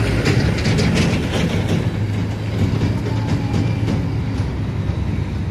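Heavy diesel dump truck engine running under load as the truck works through soft mud, a steady low rumble with a few rattling knocks in the first two seconds.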